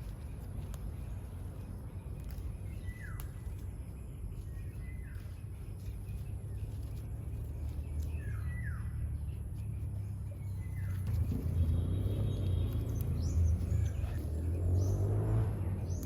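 A bird calls about five times, each a short falling chirp, over a steady low rumble that grows louder in the second half.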